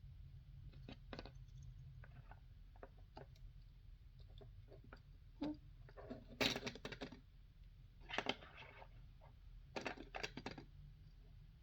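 Light clicks and taps of tweezers and fingers working a Nintendo Switch Joy-Con's ribbon cable into its connector, scattered and quiet, with a few louder clusters of clicks in the second half.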